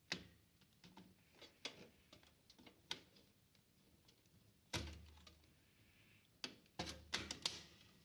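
Scattered light clicks and taps, with two duller knocks about five and seven seconds in: hands handling computer hardware while taking out the processor.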